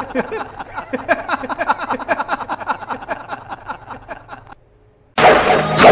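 A man laughing loudly and maniacally in a long run of rhythmic 'ha-ha' bursts, stopping about four and a half seconds in. After a short silence, a sudden loud crash-like burst hits near the end.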